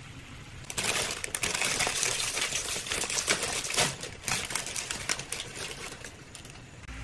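Crinkly plastic wrapper of an instant noodle packet being handled and torn open, a dense crackling that starts about a second in and eases off after about four seconds.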